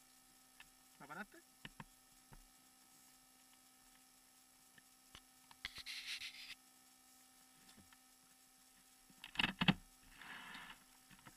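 Faint steady electrical hum, with a few bumps and rustles as the camera is handled, the loudest a cluster of knocks about nine seconds in. A short snatch of voice comes about a second in.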